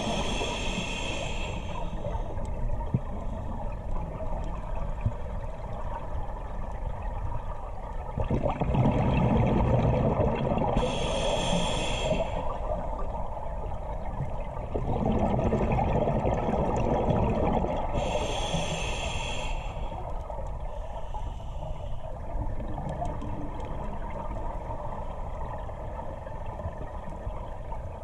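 Scuba diver breathing through a regulator underwater: three short inhalations with a high whistling hiss, and two longer exhalations of bubbles rumbling between them, over a steady underwater hiss.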